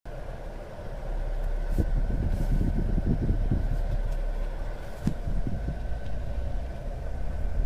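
Car driving along, with steady engine and road rumble and a few knocks and rattles in the middle.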